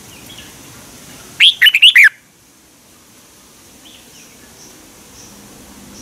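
Red-whiskered bulbul singing one short, loud phrase of a few quick warbled notes about a second and a half in, with faint chirps around it.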